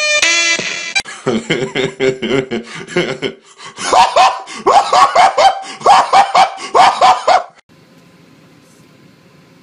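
A man's voice making short, sharp, rising yelps in quick runs of three or four, louder in the second half. The yelps cut off suddenly and leave faint room tone.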